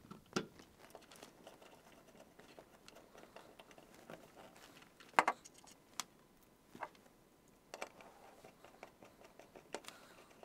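A handful of small, quiet clicks and taps as wire ring terminals and screws are handled and fitted onto a blade fuse block's terminals. The sharpest click comes about five seconds in, over faint rustling of the wire.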